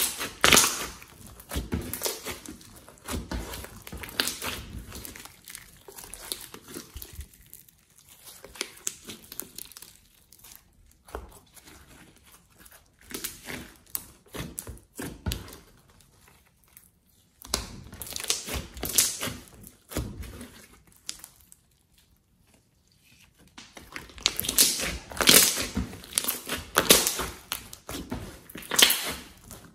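Glossy slime being squeezed, poked and stretched by hand, giving irregular sticky clicks and pops. It is louder in the first second and again through the last few seconds, with quiet pauses between.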